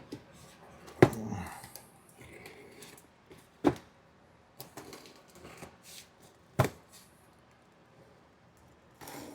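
Parts and packaging being handled on a bench: three sharp knocks a few seconds apart as items are set down, with light clicks and rustling between.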